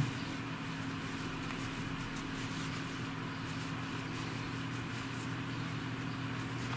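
Steady low hum of background room noise, with faint soft scratches of a crochet hook pulling cotton yarn through stitches.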